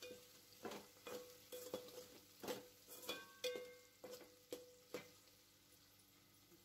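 A perforated metal skimmer stirring vegetables frying in oil in an aluminium pressure cooker, scraping and clinking against the pot about twice a second over a faint sizzle. The stirring stops about five seconds in.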